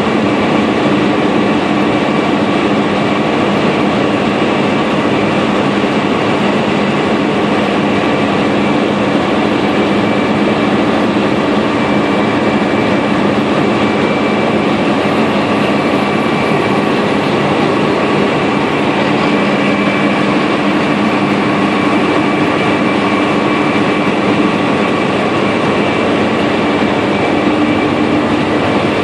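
ZJ50 land drilling rig machinery running steadily: a loud, constant mechanical noise with a steady low hum and higher whines running through it.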